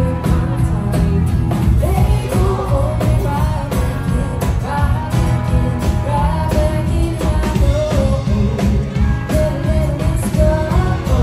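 Live band music with a singer, over a strong bass and a steady drum beat.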